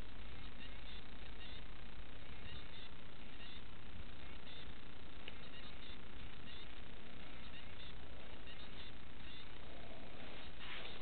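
Steady background hiss of a camcorder microphone, with faint, scattered short high chirps or ticks, a few more of them near the end.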